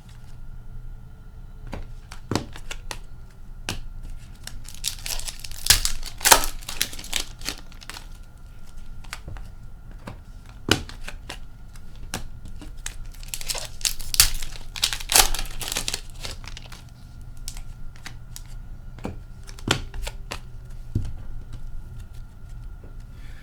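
Hockey card pack wrappers being torn open and crinkled, with small clicks and rustles of the cards being handled. The longest stretches of tearing and crinkling come about five seconds in and again around fourteen seconds.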